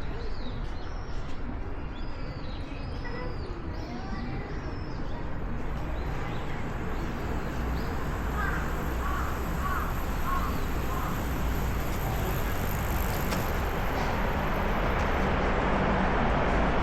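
Birds chirping in short calls over a steady low rumble of city traffic, the traffic noise swelling louder toward the end.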